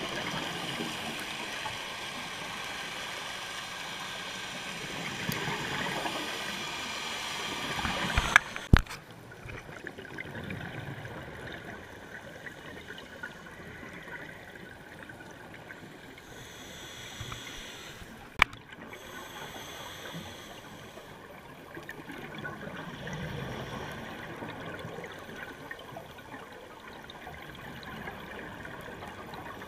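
Underwater gurgling and rushing of scuba regulator exhaust bubbles, heard through the camera's housing, louder for the first eight seconds or so. A few sharp clicks cut through, around eight seconds in and again near eighteen.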